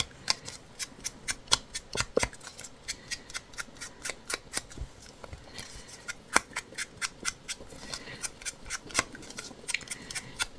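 Small ink pad dabbed and rubbed along the edges of a torn paper scrap, making a quick, irregular series of short, dry paper clicks and taps.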